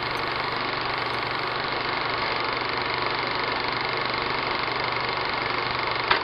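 Steady electrical buzz with a low mains hum from a bare filament light bulb, switched on; it cuts off with a click at the very end.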